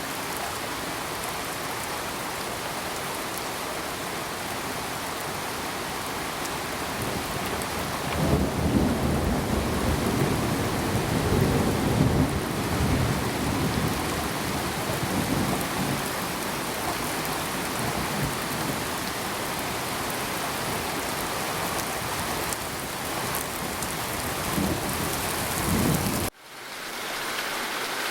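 Steady heavy rain with a long rumbling roll of thunder that builds about eight seconds in, peaks, and dies away over the next several seconds. Near the end the sound cuts out suddenly and fades back in as the rain recording changes.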